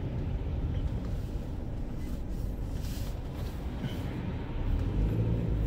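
Car driving in traffic, heard from inside the cabin: a steady low rumble of engine and tyre noise, growing slightly louder near the end.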